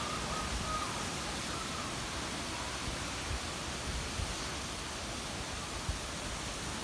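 Wind blowing through trees: a steady hiss of rustling leaves, with low gusts now and then buffeting the microphone.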